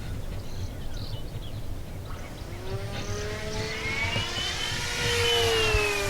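Radio-controlled model airplane flying past. Its motor and propeller whine rises in pitch as it approaches, is loudest about five seconds in, and falls in pitch as it goes away, over a low rumble of wind on the microphone.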